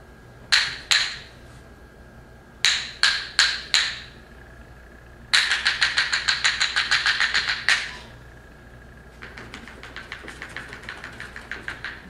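Sharp wooden percussion clacks, like a wood block or clappers: two strikes, then four, then a fast run of about six a second lasting a couple of seconds, and a fainter fast run near the end.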